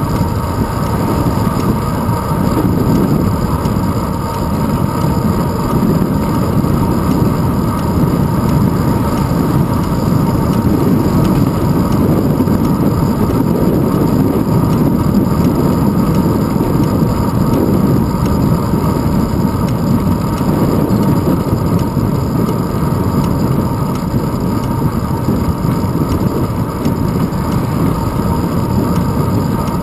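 Steady wind buffeting and road rumble picked up by a handlebar-mounted GoPro Hero 2 as the bicycle rolls along asphalt.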